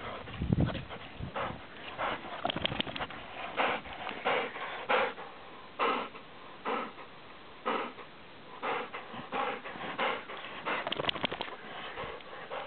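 A Bernese mountain dog breathing hard and sniffing close by, in short puffs about once a second.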